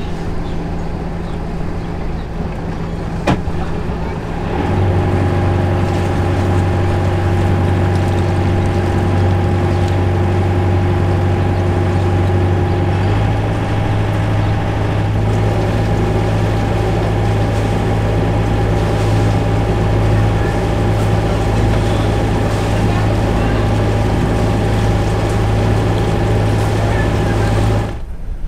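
Sailboat's inboard diesel engine running steadily while the boat motors through the harbour, getting louder about four and a half seconds in.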